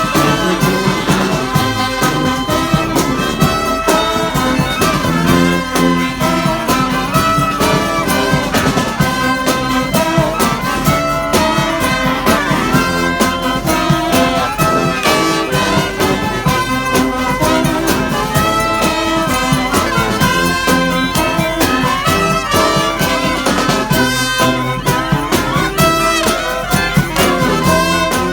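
Brass street band playing loud, up-tempo music: massed horns over a steady drum beat.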